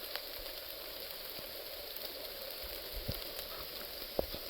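Light rain falling steadily on the woods as an even hiss, with a few sharp drip taps, the clearest near the end.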